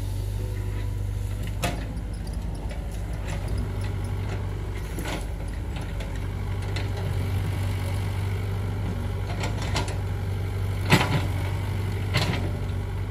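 Excavator engine running steadily with a low hum, with scattered knocks and clanks; the sharpest knock comes about eleven seconds in.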